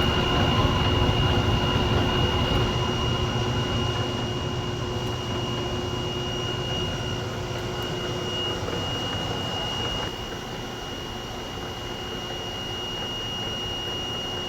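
A machine running steadily, with a constant high whine over a low rumble. The rumble fades gradually, a lower hum stops partway through, and the overall level drops a step about ten seconds in.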